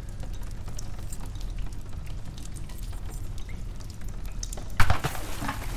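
Sparse water drips over a steady low machinery hum, then a sudden sharp hit followed by a short burst of hiss near the end.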